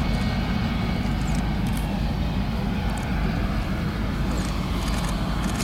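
Lockheed U-2S's General Electric F118 turbofan running at low power as the aircraft rolls away down the runway after landing: a steady low rumble with a faint high whine.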